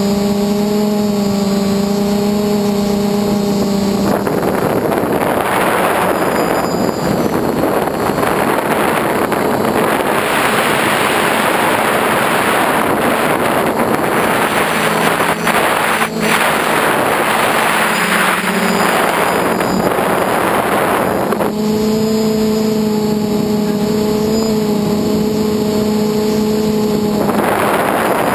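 Small FPV model aircraft's electric motor and propeller humming at a steady pitch. Wind rushing over the onboard camera's microphone drowns the hum out from about four seconds in. The hum returns about twenty-one seconds in, and the wind rises again near the end.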